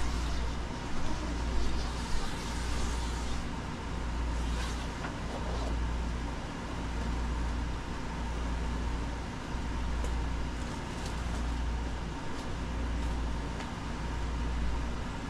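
A steady low rumble that swells and fades about every second and a half, with a thin steady tone above it, and a few faint ticks and rustles as quilted mattress fabric is peeled back and rolled up.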